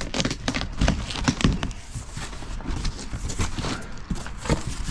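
Cardboard shipping box being opened by hand: the flaps are pulled back, with the cardboard crackling, scraping and knocking in a quick run of taps and rubs, busiest in the first second or two.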